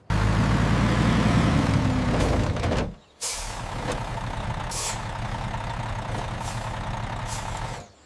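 Heavy truck's diesel engine: a loud rumble for about three seconds, a brief break, then steady running, with a few short hisses of air brakes over it.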